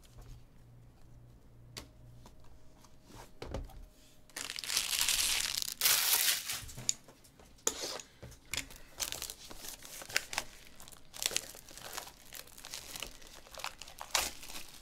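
Plastic shrink wrap being torn and crinkled off a sealed cardboard box of trading cards: a few light clicks at first, then a long loud rip about four seconds in, followed by steady crackling and crinkling of the plastic.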